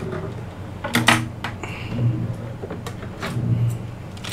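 Irregular clicks and knocks of small parts and tools being handled on a repair bench, over a steady low hum.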